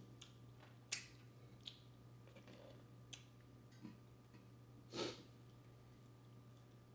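Faint mouth sounds of a person eating wings and fries: scattered small lip smacks and clicks, with a short sniff about five seconds in, over a steady low hum.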